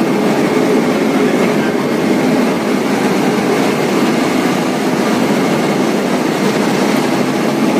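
Steady, loud machinery noise inside the machine room of a running three-phase electric locomotive of the WAG9/WAP7 class.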